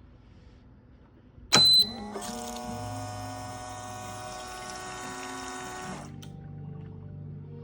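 Coffee machine with its pump running and water flowing for about four seconds, then cutting off suddenly. A sharp loud click comes just before it starts.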